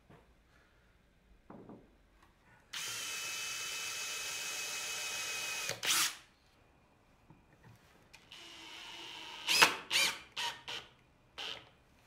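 Cordless drill running steadily for about three seconds as it bores a pilot hole through a small wooden screw block, then cutting off with a short loud burst. A few seconds later it drives a screw through the block, running more quietly and ending in a few sharp short bursts as the screw goes home.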